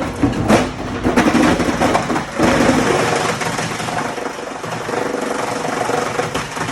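Ball & Jewel 25 hp open-rotor three-blade granulator chopping rigid plastic: a clatter of sharp cracks and knocks over the steady running of the rotor, loudest in the first two and a half seconds, then settling into a steadier grinding.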